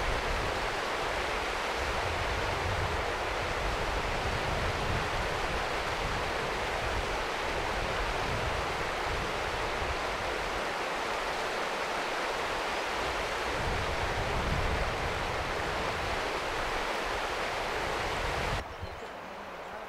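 River water running steadily, with wind buffeting the microphone in uneven low gusts. The sound drops away abruptly near the end.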